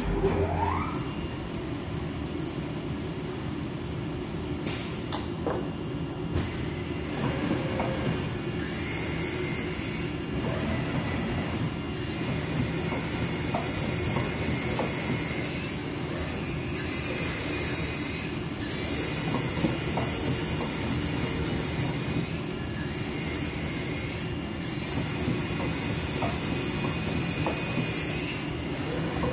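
CNC oscillating-knife cloth cutting machine running: the vibrating knife and gantry make a steady low rumble, with a higher whine coming and going in stretches and small clicks now and then.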